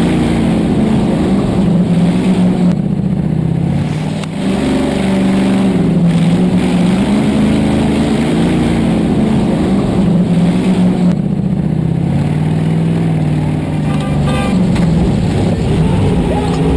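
Off-road vehicle engine running hard and revving, its pitch rising and falling.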